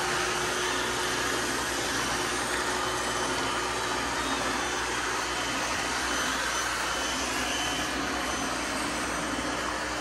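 Robot vacuum cleaners running on carpeted stair treads: a steady whirring noise that holds without a break.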